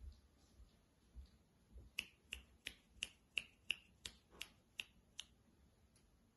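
About ten finger snaps in quick, even succession, roughly three a second, beginning about two seconds in and stopping a little after five seconds.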